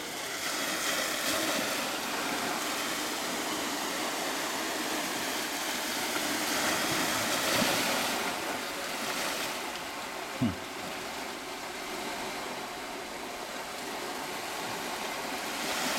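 Steady wash of sea waves and wind at the shoreline, swelling and easing, with one short low sound about ten seconds in.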